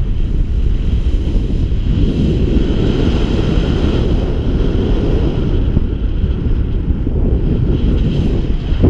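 Airflow buffeting the microphone of a paraglider in flight: a steady, loud, gusty wind rumble with no breaks.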